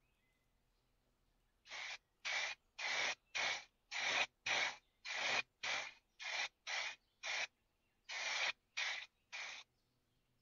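Aerosol spray can of primer hissing in about fourteen short bursts, each a third to half a second long, as a metal bayonet scabbard is given a grey primer coat.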